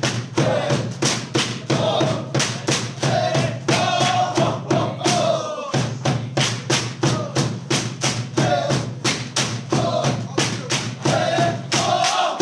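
Bamboo poles of a bamboo dance knocked together and against the stage floor in a steady rhythm of about four strikes a second, with a drum and a group of voices chanting over it.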